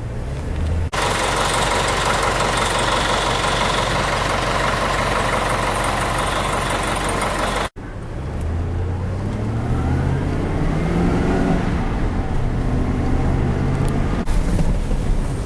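A loud, steady machine noise that cuts off abruptly, then a motor vehicle's engine accelerating, its pitch rising several times.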